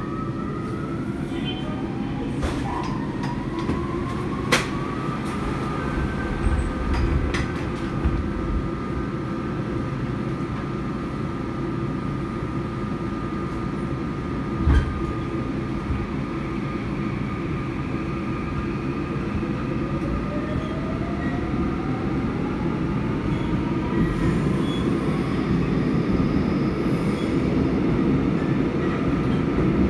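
Seoul Metro 4000-series electric subway train with a Toshiba IGBT VVVF inverter running, heard from inside the car: a steady rumble of wheels on rail under a thin electric whine that rises in pitch, holds, and then rises again later as the train accelerates. There are a couple of sharp knocks from the running gear.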